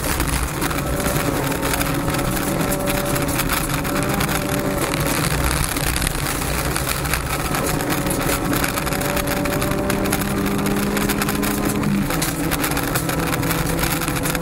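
In-car sound of a Honda Civic rally car's four-cylinder engine held at high revs, with a steady hiss and rattle of gravel under the tyres and against the body. The engine note climbs slowly and steps down about twelve seconds in as it shifts up.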